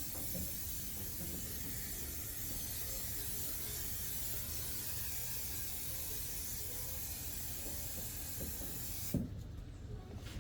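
Heat gun blowing with a steady hiss, warming new automotive carpet so it shapes to the floor. About nine seconds in there is a thump and the hiss stops.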